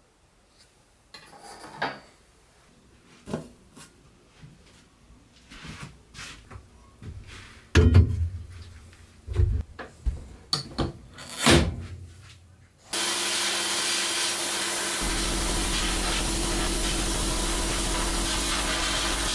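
Scattered knocks and scrapes of small parts and tools being handled, then about 13 seconds in a sandblaster's air blast starts with a sudden, loud, steady hiss. A low hum joins it a couple of seconds later.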